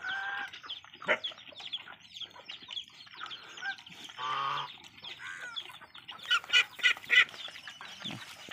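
Poultry calling and clucking again and again, loudest in a quick run of calls about six to seven seconds in. Under the calls are small wet clicks of a horse lapping water from a metal basin with its tongue, like a dog.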